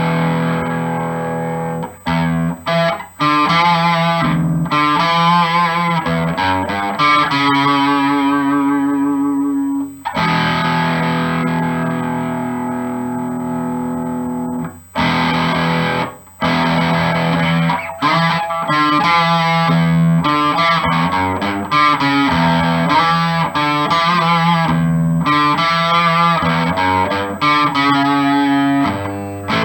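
Electric guitar with a Seymour Duncan Little '59 mini humbucker in the bridge position, played through an amplifier with some distortion: chords and riffs, a few chords left to ring for several seconds, with short breaks between phrases.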